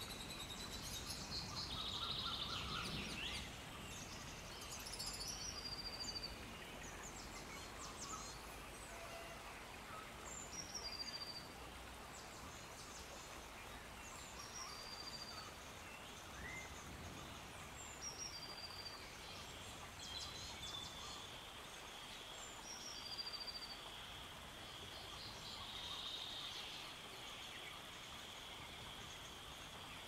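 Faint outdoor nature ambience: birds chirping, with short high notes repeating every few seconds over a soft background hiss. A steady high tone joins in about two-thirds of the way through.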